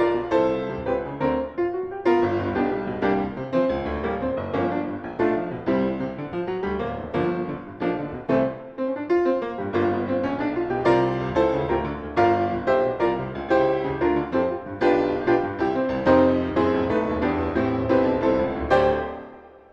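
Piano interlude between verses of a hymn, a series of struck chords that fades out near the end.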